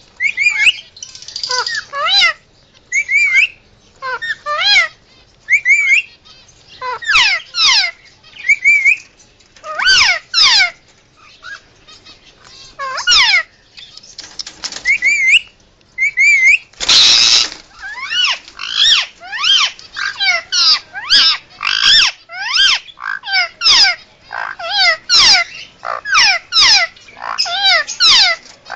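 Indian ringneck parakeet calling: a long series of short, shrill, sweeping squawks, sparse at first, then coming rapidly at about two a second in the second half. A short noisy burst comes about halfway through.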